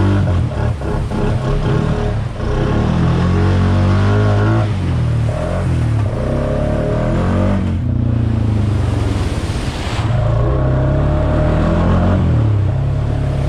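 Honda Foreman ATV's single-cylinder four-stroke engine working hard on a trail ride, its pitch rising and falling again and again as the throttle is opened and eased off.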